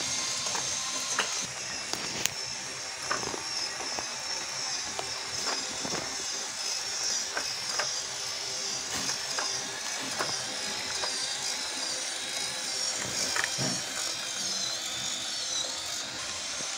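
Homemade popsicle-stick toy train running on its small servo motor, with a steady high whir from the motor and irregular clicking and rattling as its bottle-cap wheels roll along the cardboard track.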